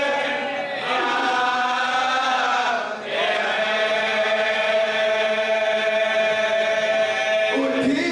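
A man chanting a marsiya, the Urdu elegy for the martyrs of Karbala, unaccompanied, in long drawn-out held notes. There is a short break for breath about three seconds in and a rising slide into a new note near the end.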